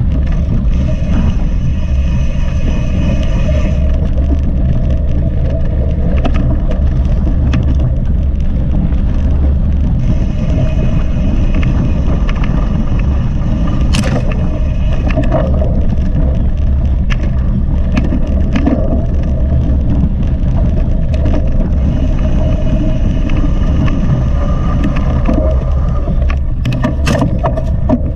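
Mountain bike ridden at race speed, heard through an action camera's microphone: steady loud wind rumble on the mic, with scattered knocks and rattles from the bike over rough ground.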